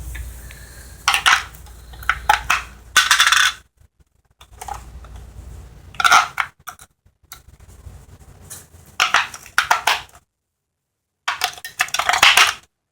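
Hard plastic clicks and rattles of a rechargeable battery pack being fitted into the plastic battery compartment of a toy RC car, in several short clusters of sharp clicks with quieter handling noise between them.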